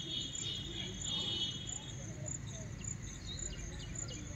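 Insects chirping: a steady high-pitched trill through the first second and a half over very high ticks repeating about twice a second, with a low background rumble.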